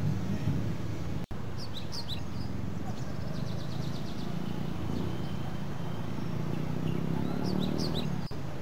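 Outdoor ambience: a steady low rumble with birds chirping a few quick, high, falling calls, about a second and a half in and again near the end. The sound cuts out for an instant twice.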